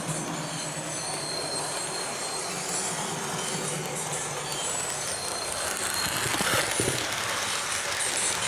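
Hornby HM7000 sound decoder on an OO gauge model locomotive playing its train sounds through the model's small speaker: steady running noise with high squealing tones, getting somewhat louder in the second half.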